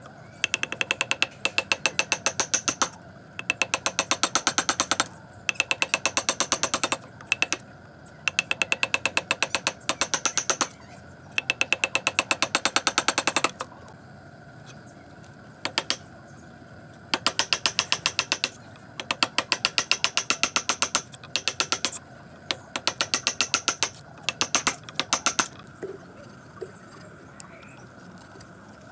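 A steel chisel is driven into a hardwood beam by rapid hammer blows, about seven ringing strikes a second. The blows come in runs of one to two seconds with short pauses between them, and they stop a few seconds before the end.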